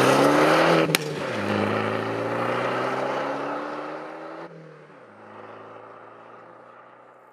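Alfa Romeo MiTo engine and exhaust accelerating hard through the gears. The pitch climbs, falls at an upshift about a second in, marked by a sharp crack, climbs again and falls at a second shift a few seconds later. The sound fades as the car pulls away and cuts off suddenly at the end.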